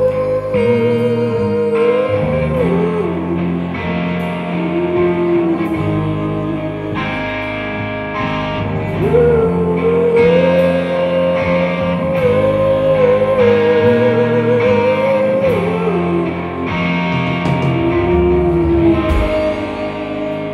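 Rock band playing live on electric guitars, bass guitar and drums, with long held notes that waver in pitch; the music eases off in loudness near the end.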